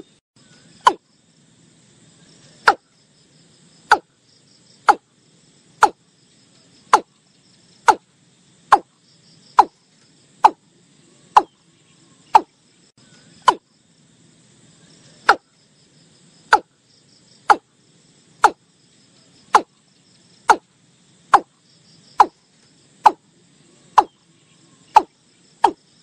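Watercock calling: a series of short, sharp, knocking notes that fall in pitch, about one a second, with a brief pause about halfway through.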